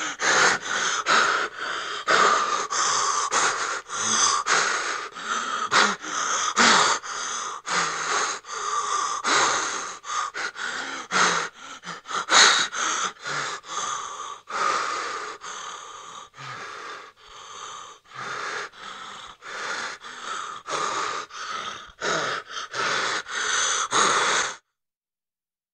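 A person breathing hard and fast in fright: quick, ragged gasping breaths in and out, about two a second. They grow quieter for a while in the second half, then stop suddenly near the end.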